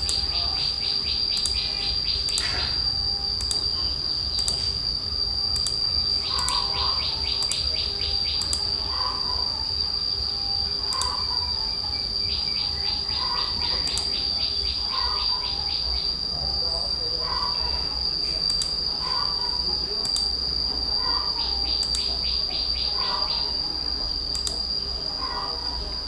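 Insects chirring: a steady high-pitched drone, with trills of rapid pulses lasting a second or two that come back every few seconds, and softer short chirps repeating about once a second from about six seconds in.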